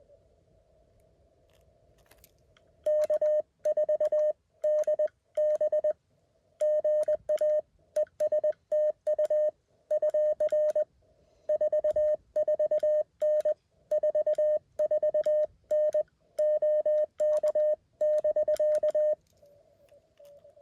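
Morse code from a Mountain Topper QRP CW transceiver: one steady mid-pitched tone keyed in dots and dashes for about sixteen seconds, with a faint click at each element. Before the Morse starts and after it stops there is a faint hiss at about the same pitch.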